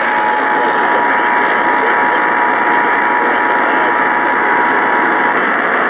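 Radio static: a loud, steady hiss from a weakly received radio signal, with a faint steady whistle running under it that drops out near the end.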